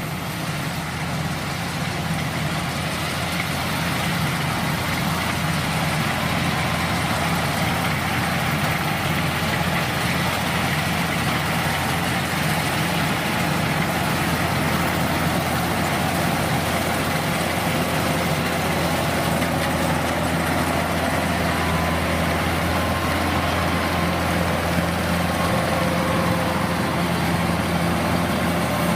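Kubota DC-105X rice combine harvester's diesel engine and machinery running steadily, a continuous hum with mechanical noise, getting a little louder over the first few seconds.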